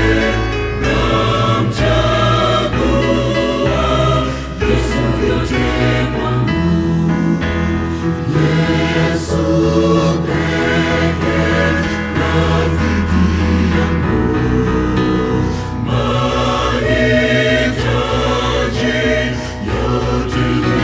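Mixed choir of men and women singing a Swahili gospel song over keyboard accompaniment with a steady bass.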